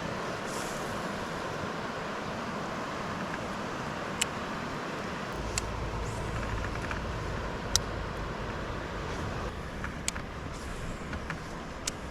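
Steady rushing of river water, with a few sharp clicks and knocks scattered through it; a low rumble joins about five seconds in.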